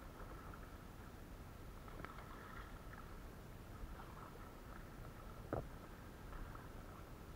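A kayak being paddled on calm water, with soft, faint water sounds from the strokes. One sharp knock comes a little past halfway through.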